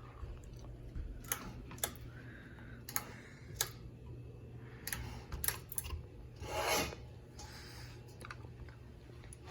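Scattered light clicks and a brief rubbing scrape about seven seconds in, from handling the Hunter ceiling fan's pull chain and switch to set it to high speed, under a steady low hum.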